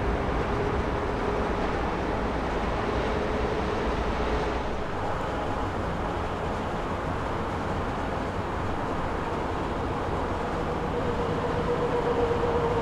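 Boeing 737-800 jet engines (CFM56-7B) running with a steady rumble and a whine that creeps up in pitch and grows louder near the end.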